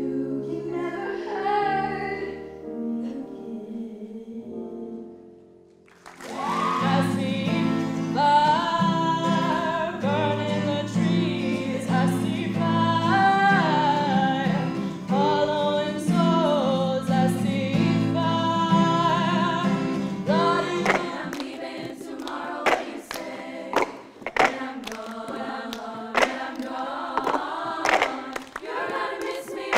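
Three school vocal performances, one after another. First a woman sings over piano and fades out; about six seconds in, a woman sings with acoustic guitar; after about twenty seconds, a choir of girls sings over sharp, rhythmic clicks of plastic cups being tapped and slapped on the stage floor.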